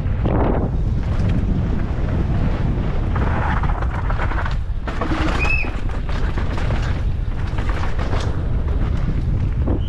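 Wind rushing over the microphone and the low rumble of a downhill mountain bike's tyres on a dirt trail at race speed, with a short high squeak about halfway through.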